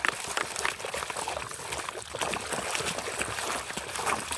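Soapy, muddy water sloshing and splashing in a tub as a plastic toy truck is scrubbed and swished about under the suds by hand, an irregular patter of small splashes.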